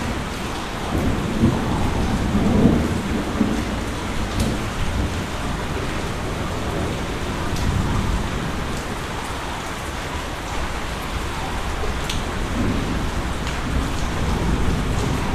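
Steady rain falling, with a few sharp individual drop ticks. Low thunder rumbles swell about a second in and again near the end.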